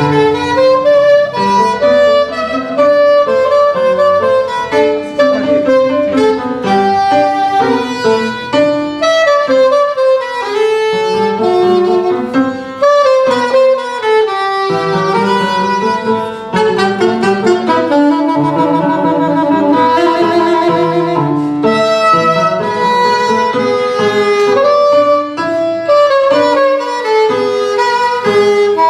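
Small instrumental ensemble playing a lively baroque piece, several melodic lines weaving in quick notes without a break.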